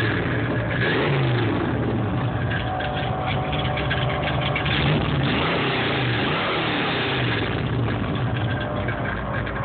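1961 Ford F-100 pickup engine running, heard close to its exhaust tailpipe, with the revs rising and falling a few times.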